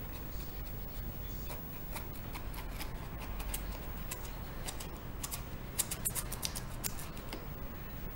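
A blade cutting into a sneaker's rubber sole and suede, making a string of short, sharp snips and clicks that come thickest between about five and seven seconds in.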